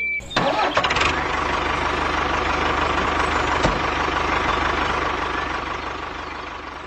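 A small model machine running steadily, a dense mechanical rattle with a faint steady hum. It starts abruptly just after the start and slowly fades toward the end.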